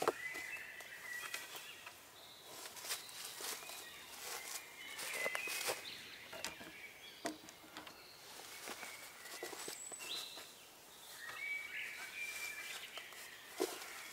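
Woodland ambience: small birds give short chirps every few seconds, over scattered light clicks and crackles.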